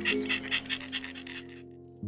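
Rapid, evenly spaced breathy pulses from an animal, about five a second, fading out after about a second and a half, over calm background music.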